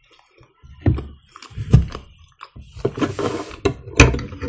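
Close-miked chewing of a mouthful of pide flatbread: irregular wet mouth clicks and dull thumps, starting about a second in.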